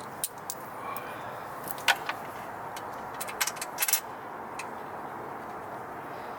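Scattered sharp clicks and knocks of bolts and washers being handled and started by hand while a van seat swivel is bolted down, loudest about two seconds in and bunched together between three and four seconds, over a steady background hiss.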